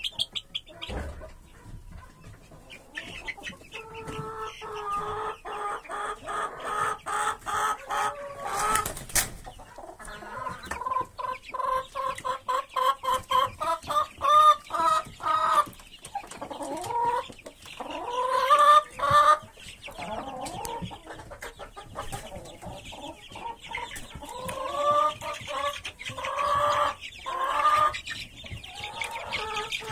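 Chickens clucking in runs of quick repeated calls, densest through the middle, with higher chick peeping at the start and near the end.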